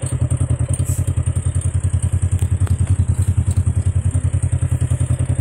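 Polaris RZR XP side-by-side's twin-cylinder engine running with a steady low throb, about a dozen pulses a second, heard from the seat of the open cab. It cuts off abruptly at the end.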